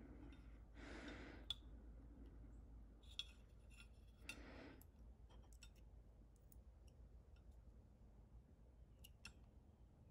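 Faint, scattered small clicks of a steel pin and trigger return spring being handled and pushed through a pistol trigger by hand, with two soft breaths, one about a second in and one about four seconds in.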